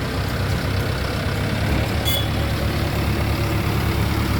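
Heavy diesel engine of a road-construction machine running steadily in a low rumble, with a brief high squeak about two seconds in.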